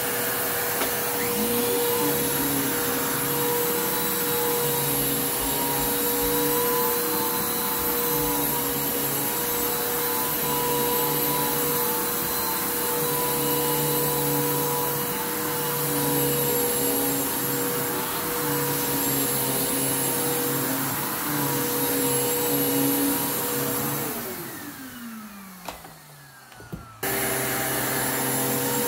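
Bissell Lift-Off Revolution Turbo upright vacuum cleaner running on carpet, a steady motor whine with a rush of airflow. About 24 seconds in the motor winds down with a falling whine and a click. Near the end the full running sound returns abruptly.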